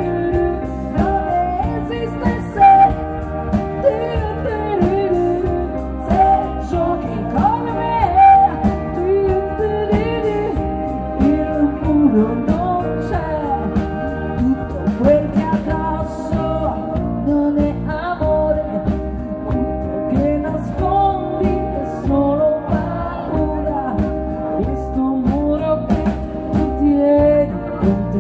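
Live pop-rock band playing: drum kit, electric guitar and keyboards, with a woman singing a lead vocal line into a microphone.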